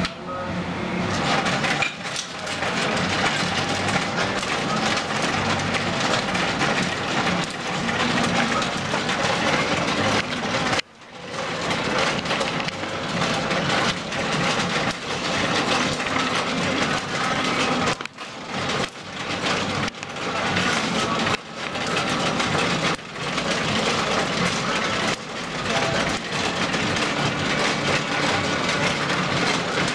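Plastic mahjong tiles clattering and clicking almost without pause as they are handled on an automatic mahjong table, with brief lulls about 11, 18 and 21 seconds in.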